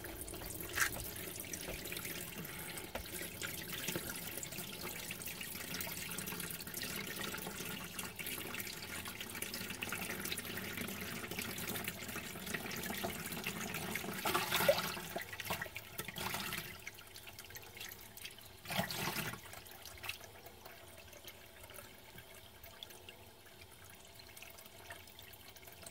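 Kitchen faucet running a thin stream of water into a bowl of tripe in a stainless steel sink: a steady, soft splashing, left running while the water heats up for rinsing. Two brief louder noises stand out about halfway through and a few seconds later, and the flow is a little quieter in the second half.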